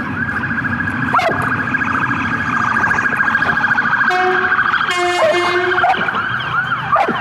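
A Belgian Malinois-mix police dog whining in a fast, continuous run of high, rising-and-falling cries, with a few longer held whines in the middle. The dog is excited as it is fitted with its work collar for a search.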